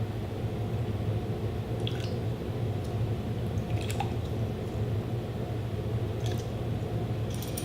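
Tablespoons of apple cider vinegar being measured and spooned into a sauce bowl: a few faint light clicks and small liquid sounds over a steady low room hum.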